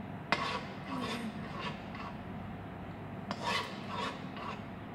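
Metal spoon stirring thick sauce in a nonstick wok, scraping along the pan. There is a sharp clink about a third of a second in, then short scraping strokes in two runs, the second starting about three seconds in.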